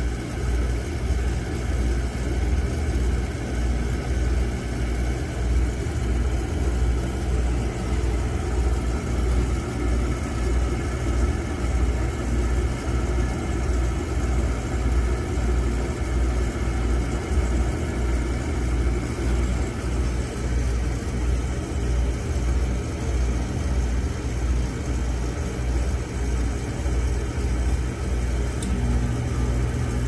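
Beckett oil burner on a furnace firing with a steady low hum, still running and not faulting out. About a second or two before the end, a second steady hum joins as the furnace blower starts blowing in heat.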